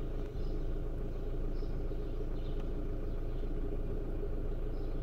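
VW Golf Mk5 engine idling steadily, heard from inside the cabin as an even low hum.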